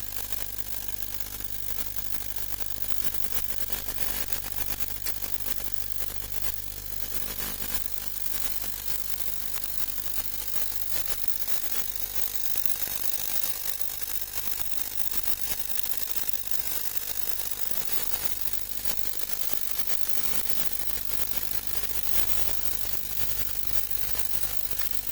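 CT-400A ultrasonic cleaning bath running its cycle with a phone board in solvent: a steady low hum under an even high hiss.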